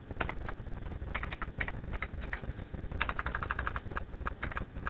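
Computer keyboard keys clicking in short irregular runs as text is typed, over a faint low hum.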